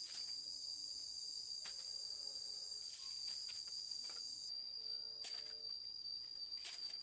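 Crickets chirring in one steady, high-pitched drone, with a higher hiss dropping out about halfway and a few sharp clicks or snaps scattered through.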